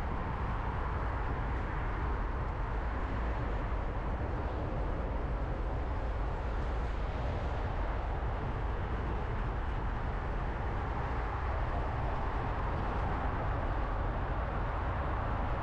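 Steady wind and traffic noise heard from a moving bicycle: an unbroken low rumble with a rushing hiss above it.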